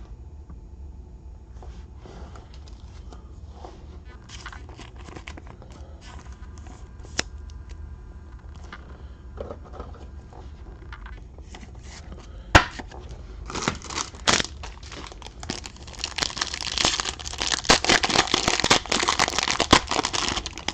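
Wrapping on a pack of trading cards being crinkled and torn open by hand. It starts as faint, scattered rustles and ticks, has a sharp click about twelve seconds in, then turns into dense, louder crinkling over the last several seconds.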